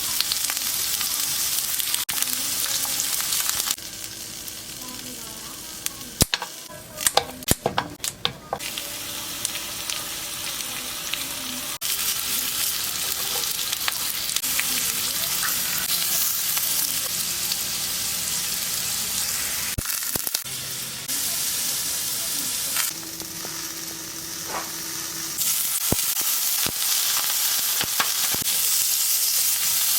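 Food sizzling in oil in a frying pan, a steady hiss that jumps up or down in level at a few points. A run of sharp clicks and taps about six to nine seconds in, as the food is stirred or turned.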